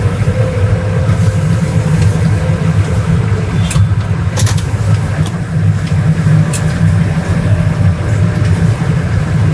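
Tractor engine running steadily at low revs as the tractor and its loaded manure dump trailer are manoeuvred straight, heard from inside the cab, with a few light clicks and knocks partway through.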